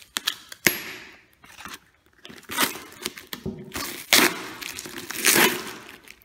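Brown plastic packing tape being cut with a knife and peeled off a cardboard box: a sharp snap, then several rasping rips of tape pulling away from the cardboard, the loudest near the end, with cardboard rustling under the hands.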